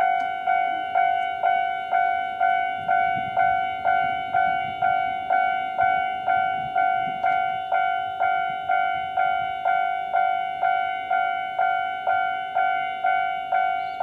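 Japanese railway level-crossing warning bell ringing steadily, about two ringing dings a second, each a clear tone that fades before the next. A few seconds in, the electric crossing barriers lower their arms with a faint low rumble under the bell.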